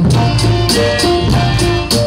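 Live band playing an upbeat number: electric bass and held keyboard notes over a Yamaha drum kit, with short high percussion strokes about four times a second.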